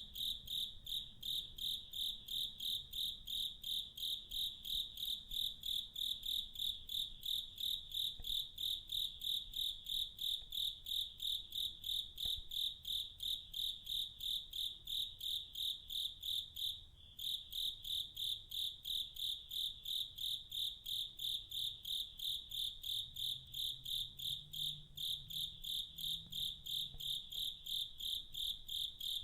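Cricket chirping in a steady, even rhythm, about three high-pitched chirps a second, with one short break about halfway through.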